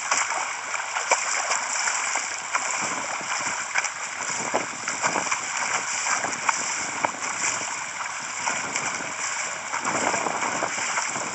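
Water churning and splashing from a swimmer's front-crawl kicks and arm strokes, picked up by an underwater camera: a steady rush of bubbles and turbulence with many small, sharp splashes scattered through it.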